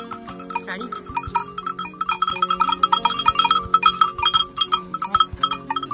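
Bells on a flock of sheep clanking and ringing irregularly, many strikes overlapping as the sheep move. A short rising bleat sounds near the start.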